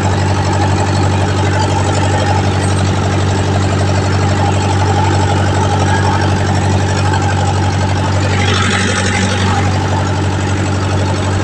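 15 kW generator running steadily under a salt-water resistive load, with a strong low hum. A brief hiss about eight seconds in.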